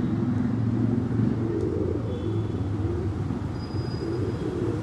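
Steady low rumble of road traffic, with a couple of faint, short, high bird calls.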